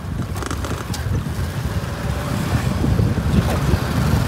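Wind buffeting the microphone during a ride on an open vehicle, over a low rumble of the ride, growing slightly louder.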